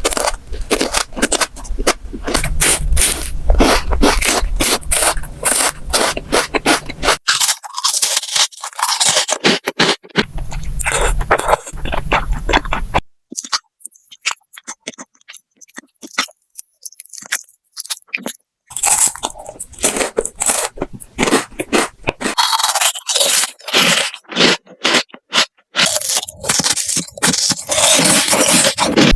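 Crunchy food being bitten and chewed close to the microphone, a dense run of crackling and scraping clicks. About halfway through, the crunching thins out to sparse, quieter clicks for several seconds, then picks up again.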